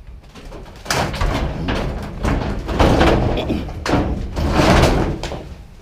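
A heavy, bulky item being shoved and dragged into a truck bed, scraping and creaking in several loud pushes with knocks in between.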